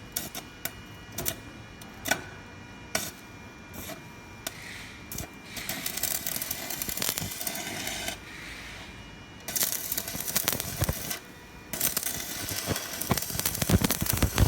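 Electric arc welding with a ZX7-250 IGBT inverter welder: a few sharp clicks, then the arc crackles in three runs of a few seconds each with short breaks between. The repaired machine is welding normally.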